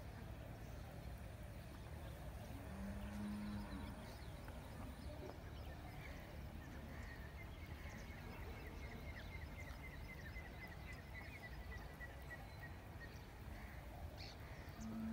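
Faint open-air ambience: a steady low rumble, with a rapid run of small chirps for several seconds in the middle and a brief low, steady tone near three seconds.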